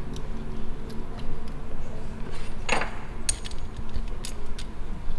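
Small metal airsoft gun parts clicking and clinking in the hands as the nozzle tip and base are fitted and tightened with a pin and a flat tool. There are a few sharp clicks and a short scrape about midway.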